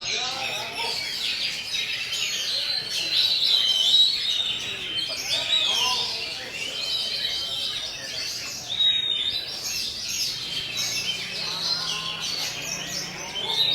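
Pet songbird singing a continuous, varied song of rapid chirps and whistles.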